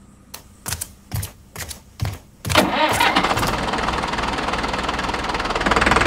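Tractor engine sound effect being cranked in several short bursts, then catching about two and a half seconds in and running steadily.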